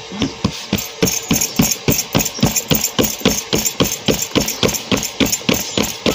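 Hands patting a disc of bhakri dough flat on a flour-dusted metal plate, rhythmic slaps at about four a second.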